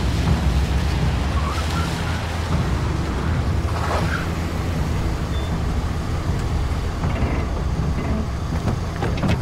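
Vehicle engine running steadily as the convoy drives, a continuous low drone.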